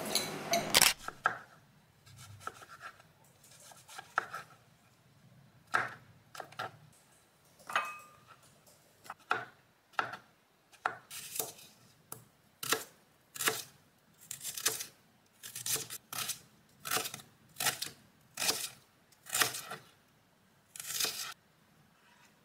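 Kitchen knife cutting onion on a plastic cutting board, each stroke a sharp crunching knock. The cuts come singly a second or two apart at first, then quicken to about one or two a second from about halfway through.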